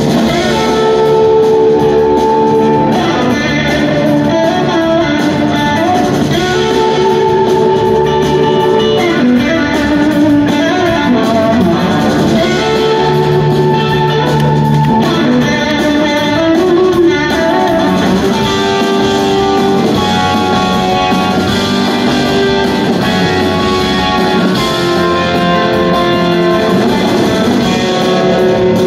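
Live rock band playing an instrumental passage, heard from the audience: a lead electric guitar with gliding slide notes over organ, drums and bass.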